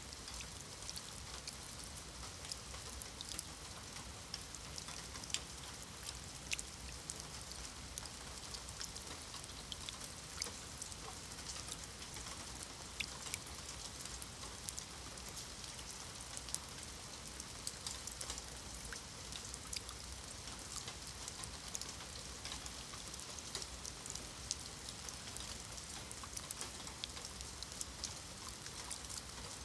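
Steady rain falling on wet stone paving: a constant hiss of drops with scattered sharper splashes of single drops landing in a thin layer of standing water.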